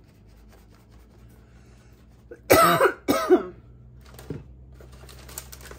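A person coughing twice in quick succession, two short harsh coughs about half a second apart.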